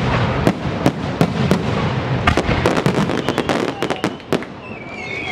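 Fireworks going off in a rapid, irregular string of sharp bangs and crackles that thins out about four seconds in. A high wavering sound rises near the end.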